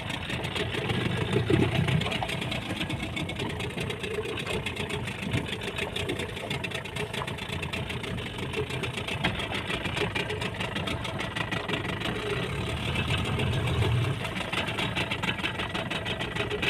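Small fishing boat's engine running steadily at idle while the boat lies stopped.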